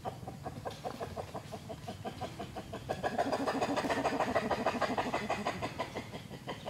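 An animal calling in a rapid run of short repeated notes, several a second, louder through the middle and easing off toward the end.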